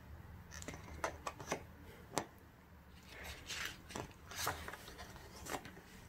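Pages of a photobook being handled and turned by hand: faint scattered paper taps and clicks, then soft rustling swishes of a page turning about three to five seconds in.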